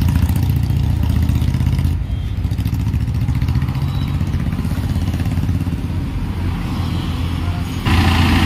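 A bus's diesel engine idling with a steady low rumble. It grows louder near the end.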